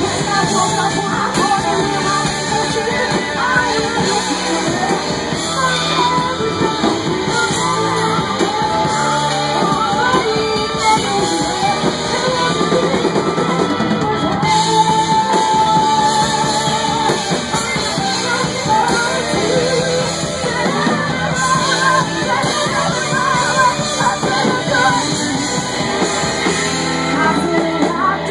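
Live rock band performance: a singer's voice over full band music with guitar, echoing in a club room.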